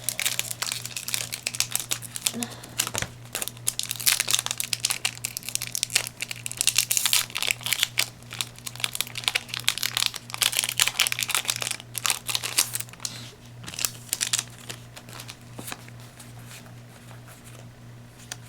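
Foil wrapper of a Yu-Gi-Oh booster pack crinkling as it is torn open and handled. Dense crackling for about the first thirteen seconds, then sparser and quieter.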